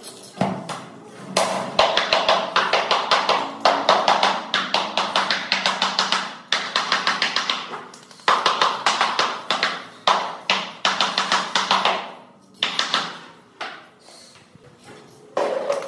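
Rubber mallet tapping a large ceramic floor tile to bed it into the tile adhesive: long runs of quick blows, several a second, broken by a few short pauses.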